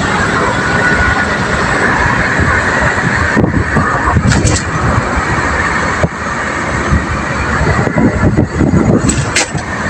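Car driving along a road, heard from inside the cabin: loud, uneven road and wind noise over the engine, with a few short knocks.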